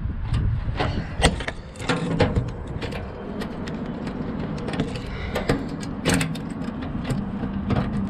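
Sharp metallic clicks and taps of a door-lock retainer clip and latch parts being handled and snapped into place, scattered irregularly and loudest at about one, two and six seconds in, over a steady low rumble.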